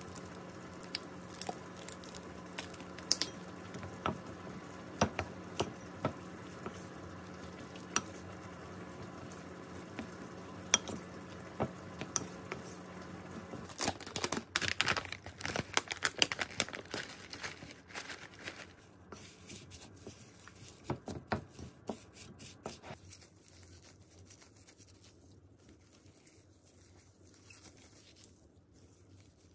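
Scattered clicks and taps over a steady low hum. The hum stops about 13 seconds in, followed by a dense burst of crinkling and tearing like food packaging being handled, then sparser clicks that fade into quiet.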